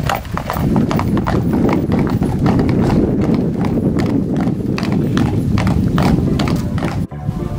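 Hooves of a pair of carriage horses clip-clopping on a paved road as a horse-drawn carriage passes, over a steady low rumble of its wheels rolling. The sound cuts off suddenly near the end.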